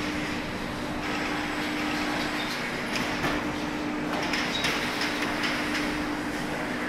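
Car assembly-hall ambience: a steady mechanical hum with a low tone under a wash of machine noise, with scattered clicks and clatter about halfway through.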